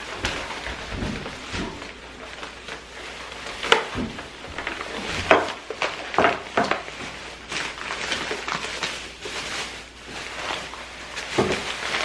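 Plastic grocery bags rustling and crinkling as they are carried in and set down, with sharp crackles and light knocks from the bags and their contents.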